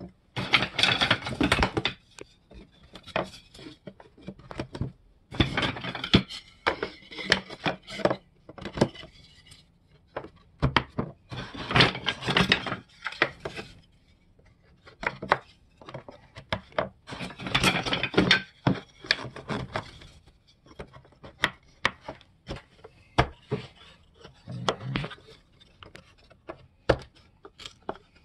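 Wooden beehive frame top bars being set one after another onto the end bars in a frame-assembly jig: bursts of wooden clattering and knocking about every five or six seconds, with fainter taps and knocks near the end.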